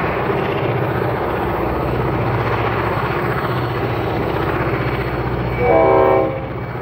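Diesel locomotives C506 and 42103 working hard up a grade with a heavy load, a steady engine drone with a fast low throb. Near the end the lead locomotive sounds its multi-note horn in a short blast.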